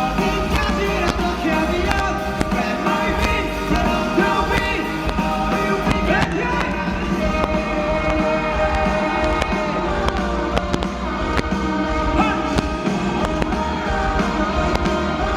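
Live rock band playing a song loud and steady, as heard over a concert hall's sound system.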